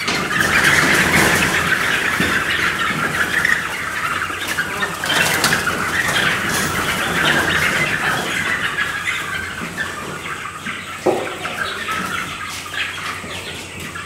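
A flock of young Black Jersey Giant meat chickens squawking and flapping their wings in alarm as they are caught by hand, a loud unbroken clamour that eases off a little toward the end.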